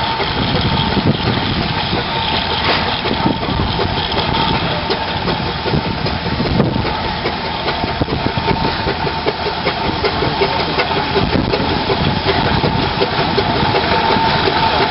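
Steam traction engines working hard under a heavy load on a 100-ton pull, the exhaust beating fast and steadily. A steady high tone runs underneath.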